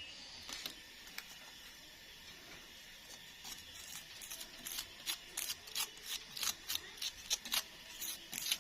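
Hand-tool work: a few isolated clicks, then, from about three and a half seconds in, a run of short, sharp scraping or snipping strokes, roughly two a second.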